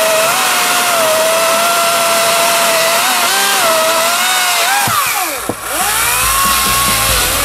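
EGO CS1605E 56-volt brushless cordless chainsaw cutting through a log, its motor and chain giving a steady high whine that wavers under load. About five seconds in, as the cut goes through, the pitch drops away sharply and climbs straight back up.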